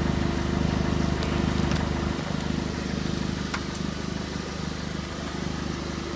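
Steady mechanical hum of a running engine or motor with a constant tone; its deepest part drops away about two seconds in, and a few faint clicks sound over it.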